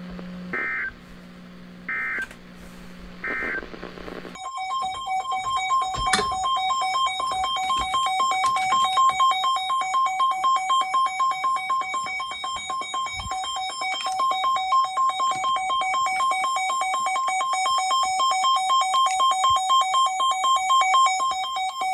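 Emergency Alert System tones from a broadcast receiver. First come three short data bursts, the end-of-message code closing the tornado warning. Then, about four seconds in, a steady two-tone attention signal with a fast flutter takes over and runs on.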